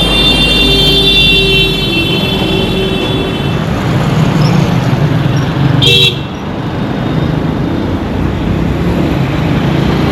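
Busy Indian street traffic with engines running steadily. A vehicle horn sounds one long held note for the first three seconds or so, and a short, sharp horn toot comes about six seconds in.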